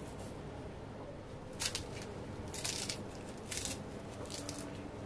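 Herbs worked by hand over a pot: dried fenugreek leaves crumbled between the fingers and fresh coriander cut with a knife against the thumb, giving four short, crisp rustling bursts about a second apart over a steady low hum.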